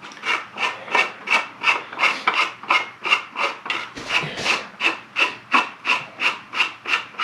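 3D-printed plastic vise parts rasping against each other as the vise is worked, in quick regular strokes of about three a second.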